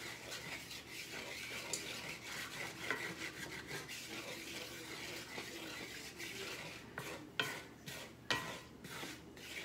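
Wooden spatula stirring and scraping flour browning in beef drippings in a cast iron skillet: a continuous scraping, with a few sharper scrapes and knocks against the pan near the end.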